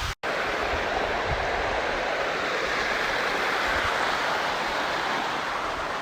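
Waterfall rushing: a steady, unbroken hiss of falling water that cuts out for a split second just after the start, where the footage is spliced.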